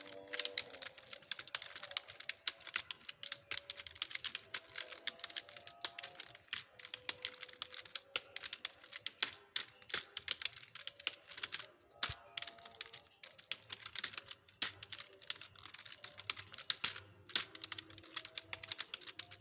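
Typing on a laptop keyboard: rapid, irregular key clicks throughout.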